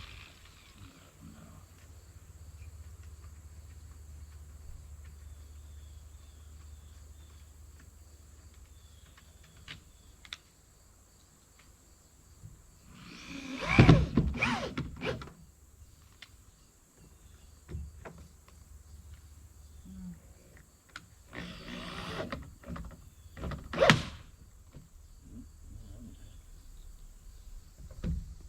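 Demolition work on an old, rotten pine barn door: a low steady hum for the first several seconds, then loud bursts of wood and metal noise with a shifting pitch, one about halfway through and two more close together near the end.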